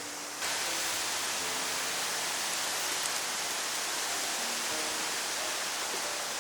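A steady hiss that gets louder about half a second in, with soft background music of slow, held notes underneath.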